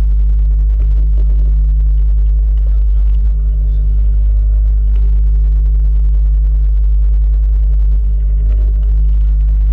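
Loud, steady low rumble with a constant drone of several even hum tones.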